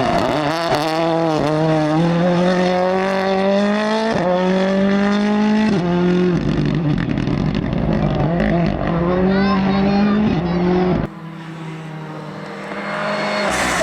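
Ford Fiesta R5 rally car's turbocharged four-cylinder engine at full throttle on a rally stage, revs climbing and dropping back with quick gear changes. About three-quarters of the way through the engine note falls away suddenly as the driver lifts off, then builds again near the end.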